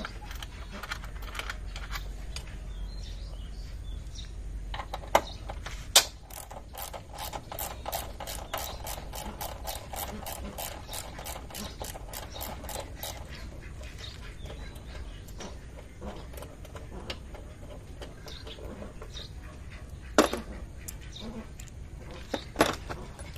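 Hand socket ratchet clicking, a fast even run of roughly five or six clicks a second for several seconds in the middle, while 10 mm bolts on the air intake are turned out. A few separate sharp metal knocks from tools and parts come before and after it.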